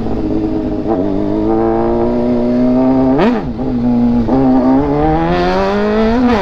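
Motorcycle engine running under way, its pitch climbing slowly as it accelerates, with a quick rise and fall in revs about three seconds in and a drop just after four seconds before it climbs again.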